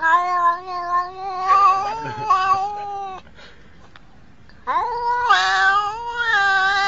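A cat yowling in two long, drawn-out calls: the first lasts about three seconds, and the second starts about a second and a half after it.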